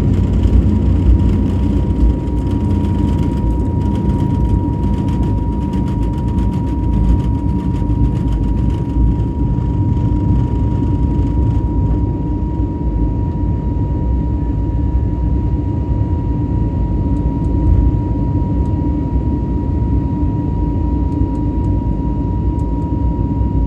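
Airbus A320neo's engines running steadily, heard from inside the passenger cabin as a loud, even roar with a thin high tone held through it.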